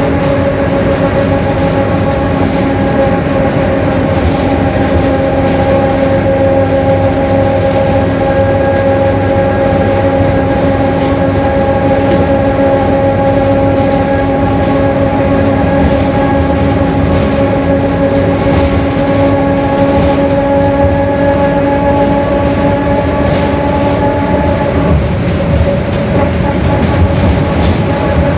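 Mercedes-Benz OF-1721 BlueTec 5 city bus running at a steady pace, with the differential droning at one steady pitch over the drivetrain rumble. The lowest note of the drone drops out about 25 seconds in.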